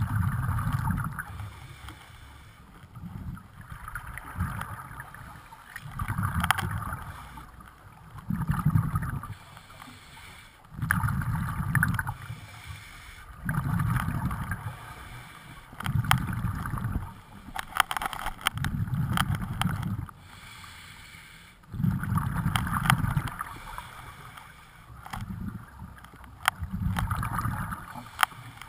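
Scuba diver breathing through a regulator underwater: regular bursts of rumbling, gurgling exhaled bubbles every two to three seconds, with quieter inhalations between and scattered small clicks.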